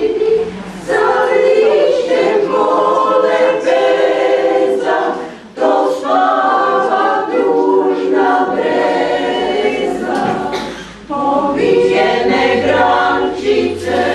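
Small choir of older singers, mostly women, singing a cappella under a conductor. The phrases break off in short pauses about every five seconds.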